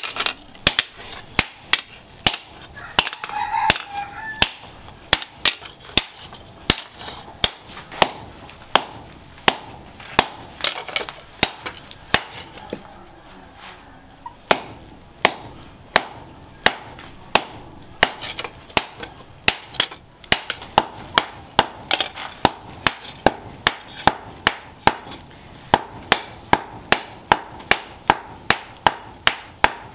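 Hammer blows on a red-hot steel cleaver blade held with tongs on a steel post anvil, at about two strikes a second: hot forging of the edge. There is a short pause near the middle.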